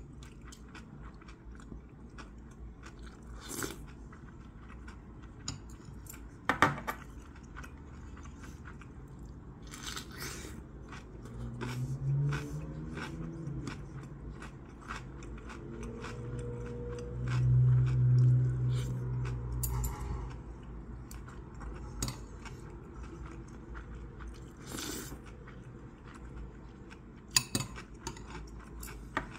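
Close-up eating sounds: chewing and crunching kimchi, with metal chopsticks and a spoon clicking against the bowls every few seconds. A low hum comes twice in the middle, the second one longer and the loudest sound here.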